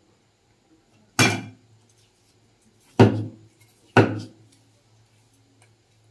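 Meat cleaver chopping three times through cooked poultry into a thick wooden chopping board, each chop a sharp knock that dies away quickly. The chops come about a second in, at three seconds and at four seconds.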